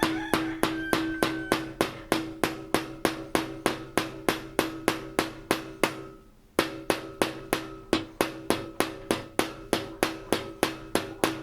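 Hammer tapping an old screw used as a punch against a flat metal pipe strap, a little over three blows a second, to dent a starting mark so the drill bit won't walk. The blows pause briefly about halfway through, then carry on, with a steady ring under them.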